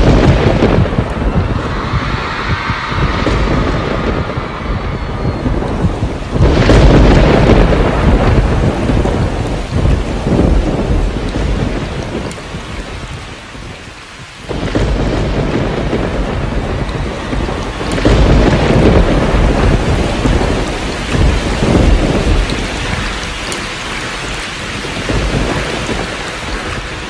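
Thunderstorm sound effect played over an arena's sound system: heavy, steady rain with rolling thunder, big claps about six and a half seconds in and again at about fifteen and eighteen seconds.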